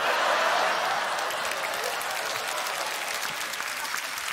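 Studio audience applauding. It starts suddenly and is loudest at first, then slowly dies down.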